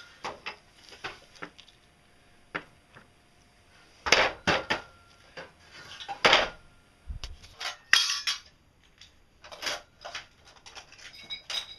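Steel parts of a homemade differential clinking and clanking as they are handled and set in place on a steel base plate: irregular knocks, the loudest about 4 and 6 seconds in and again near 8 seconds.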